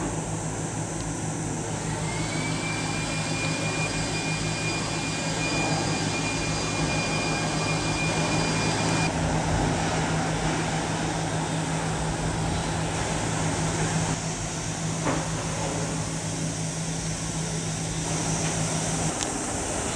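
Large oil/chemical tanker underway, its engine giving a steady low drone under a noisy rushing haze; the drone stops near the end.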